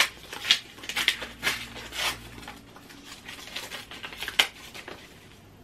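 Paper envelope being opened by hand and a greeting card drawn out: a run of crisp paper rustles and crinkles, busiest in the first couple of seconds, with another sharp rustle near the end.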